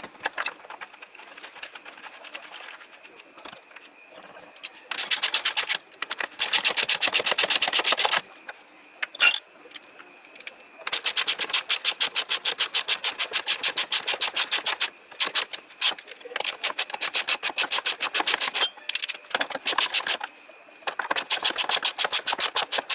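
Hand ratchet wrench clicking rapidly in several bursts of a second or a few seconds, about ten clicks a second, as bolts are run in.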